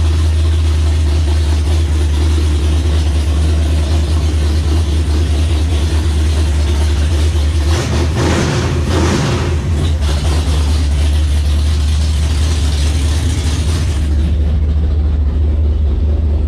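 Newly installed 406 cubic-inch low-deck big-block Mopar V8 running at a steady idle through big-tube TTI stepped headers on its first start-up, with a short blip of the throttle at the carburettor about eight seconds in. Near the end the sound turns duller, heard from inside the car.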